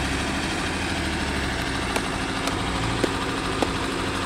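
An engine idling steadily, with a few short clicks in the middle.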